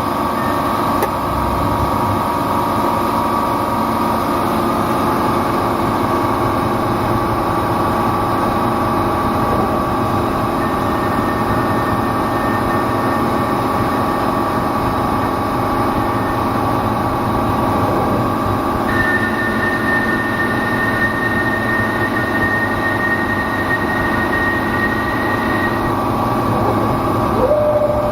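CK6440 slant-bed CNC lathe running, a steady machine hum made of several tones. About two-thirds of the way through, a high thin whine joins it and holds for several seconds.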